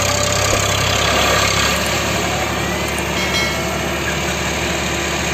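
Eicher 551 tractor's diesel engine running steadily.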